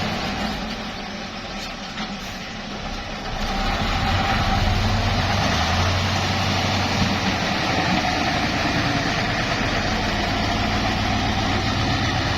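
Heavy dump truck engine running steadily, quieter for the first few seconds and then louder again from about three and a half seconds in.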